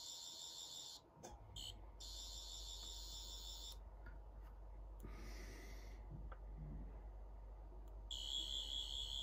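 11th Doctor sonic screwdriver replica sounding its effect through its small speaker: a high, warbling electronic buzz in bursts of one to two seconds, switched on and off several times while the green emitter lights.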